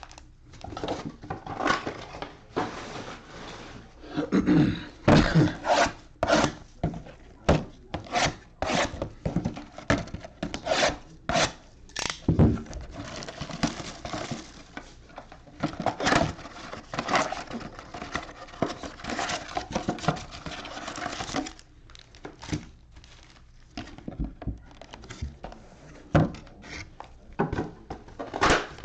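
Cardboard trading-card boxes and card packs being handled and opened: cardboard rubbing and scraping, with many sharp clicks and taps.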